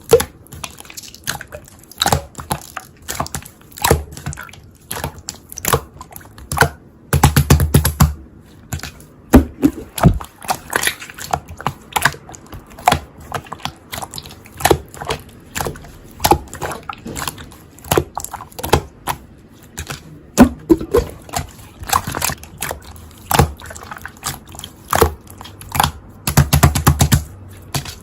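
Slime being pressed and worked by hand: an irregular stream of sticky clicks and pops, with two longer crackling bursts, about a quarter of the way in and near the end.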